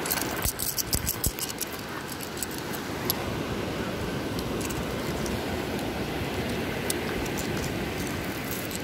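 Small seashells clicking and rattling against each other as a hand picks through a bed of broken shells, a quick cluster of clicks in the first second or so and a few single ones later, over a steady rushing background noise.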